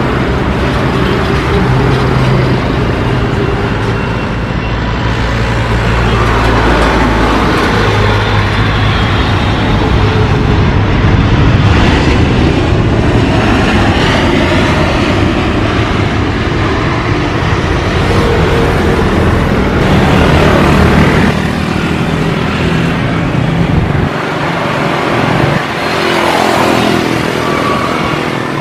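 Jet airliner engines, from Boeing 777 twinjets passing low over the runway and rolling along it, running loud with a steady low rumble. Near the end a falling whine is heard as a Boeing 787 comes in on approach.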